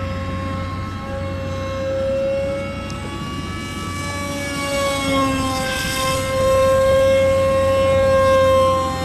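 Electric motor and propeller of a radio-controlled model jet whining steadily in flight, the pitch wavering slightly. It grows louder for a couple of seconds from about six seconds in as the plane passes closer.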